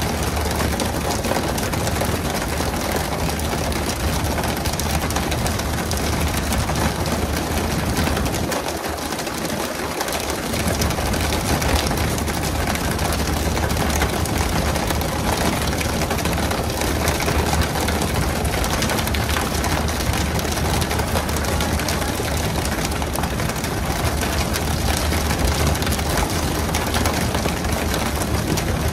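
Fishing boat's engine running steadily with a low hum under a constant rush of water and spray. The low hum drops away for a moment about nine seconds in.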